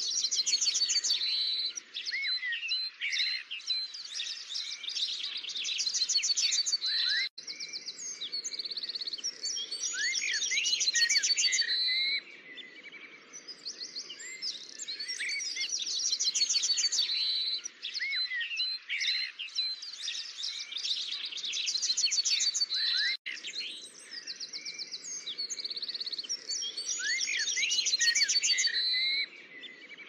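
Several songbirds singing together: bursts of fast, high trills and short rising chirps, with quieter gaps between the bursts. The same stretch of song repeats about every sixteen seconds, like a loop.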